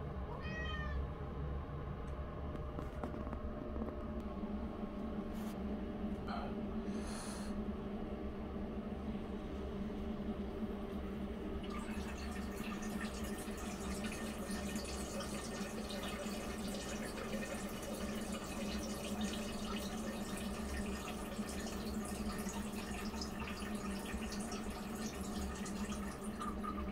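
A person urinating into a toilet bowl: a trickling stream into water, thickening into a steady hiss from about twelve seconds in, over a steady background hum.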